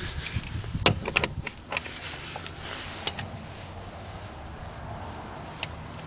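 Handling noise between impact wrench runs while removing lug nuts: a few sharp clicks and knocks, a quick cluster about a second in and single ones later, over a low background.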